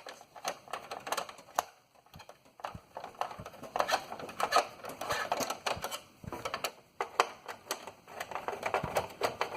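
Clicks, knocks and rattling of metal and plastic parts as a CPU heatsink is unclipped and lifted out of a desktop computer, with a denser stretch of scraping and clatter in the middle.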